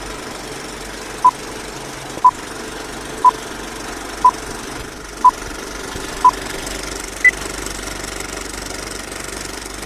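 Countdown-style beeps over a steady droning background: six short beeps one second apart, then a single higher-pitched beep a second later.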